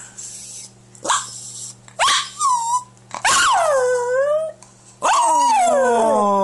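A small dog howling and crying: a couple of short yelps, then two long howls, the last one sliding down in pitch.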